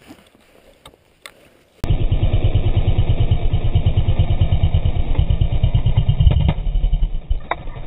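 A few faint knocks for the first two seconds, then a sudden cut to a loud dirt-bike engine running, played slowed down as a low, rapid, even throb. A few sharp knocks come near the end.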